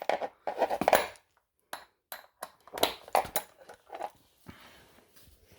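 Irregular sharp metallic clinks and taps of a wrench working the 13 mm chain-tension adjuster nuts on a spin bike's frame, as the chain is being tightened.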